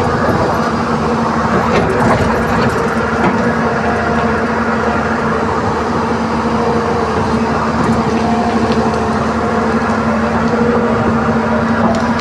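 Hydraulic excavator's diesel engine running at a steady speed, heard from inside the operator's cab, with an even droning tone and a few faint clicks.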